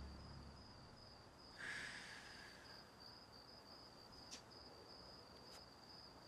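Crickets chirping faintly and steadily in an otherwise near-silent night. Low music fades out at the very start, and a short soft hiss swells up about one and a half seconds in.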